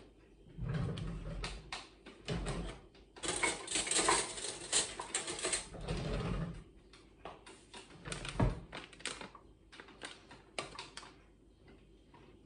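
A kitchen utensil drawer is opened and rummaged through: utensils clatter and click against each other and the drawer. A few dull thumps come in between, the loudest about eight seconds in.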